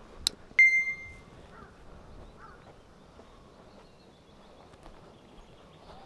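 Clinks from a sheet-metal charcoal chimney starter being handled: a couple of light clicks, then a sharper knock with a short ringing tone that dies away within a second. Afterwards only a faint outdoor background.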